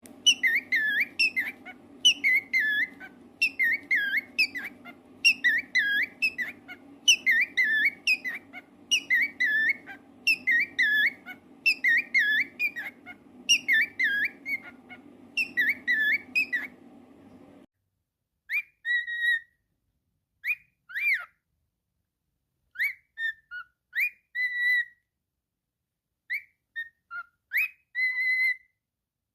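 Cockatiel whistling: a short rising-and-falling phrase repeated about once a second, over a faint steady low hum. About eighteen seconds in, the hum cuts off suddenly and the bird gives separate whistled notes and short glides, some held on one pitch, with silent gaps between them.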